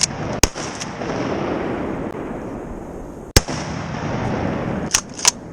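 Pump-action shotguns fired at ducks in flight: four sharp reports, one about half a second in, the loudest a little past three seconds, and two lighter ones close together near the end.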